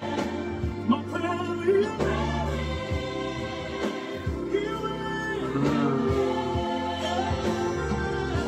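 Gospel song playing, with a choir singing over a steady bass line.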